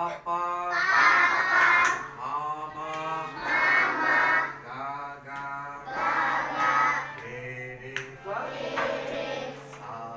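A class of young children singing together in chorus, in phrases of about a second with short breaks, over a steady held harmonium drone.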